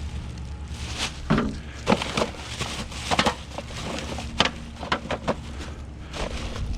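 A series of irregular sharp knocks and clacks, about eight in all, over a steady low rumble.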